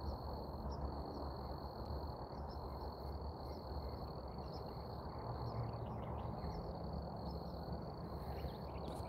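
Crickets trilling in one steady, high, unbroken tone over faint low background noise.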